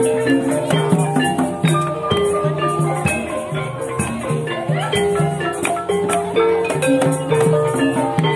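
Unamplified Javanese gamelan playing, with no singer: bronze gong-chime pots and metallophones ringing held notes in a changing melody over frequent kendang drum strokes.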